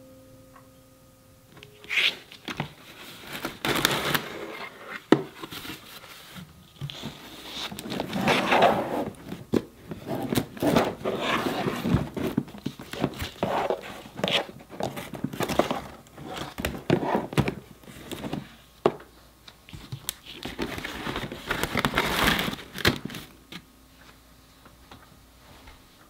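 Woven bamboo picnic basket and plastic storage containers being handled: irregular rustling and creaking of the woven bamboo with sharp clicks and knocks, starting about two seconds in and stopping a few seconds before the end.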